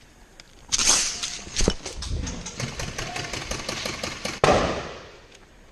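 Airsoft guns firing in rapid bursts of quick sharp shots, with one louder bang about four and a half seconds in.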